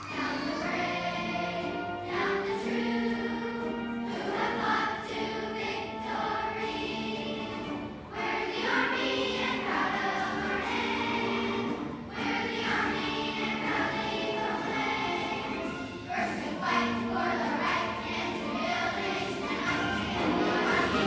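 Fifth-grade children's choir singing a song, its phrases breaking about every four seconds.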